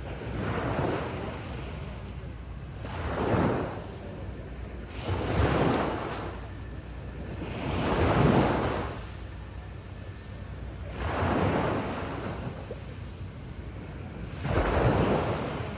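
Sea waves breaking and washing up a beach, a swell of surf about every two to three seconds, six in all, over a steady wash of water.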